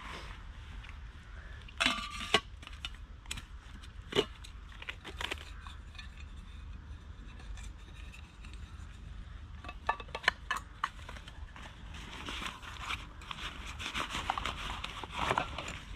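Rustling and crinkling handling noise with scattered sharp clicks and knocks, the rustling thickening near the end, over a steady low rumble.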